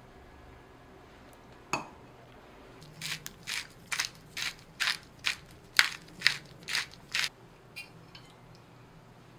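Pepper salt being seasoned onto a bowl of porridge: about a dozen short, crisp rasping strokes, two to three a second, stopping a little after seven seconds in. A single clink sounds a little before two seconds in.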